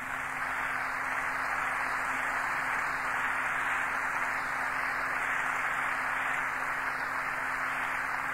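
Audience applauding, a steady wash of clapping that swells up and holds, heard muffled on the recording with a faint steady hum beneath.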